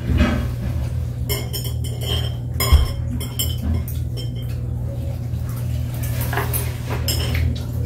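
Tableware clinking as chopsticks pick at plates and dishes on a dining table: a run of sharp clinks and knocks, the loudest about two and a half seconds in, over a steady low hum.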